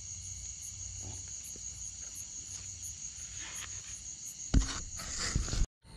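Insects, crickets by the sound of it, trilling steadily in high, even tones. About four and a half seconds in, a loud knock is followed by a second of rustling handling noise, and the sound cuts out briefly near the end.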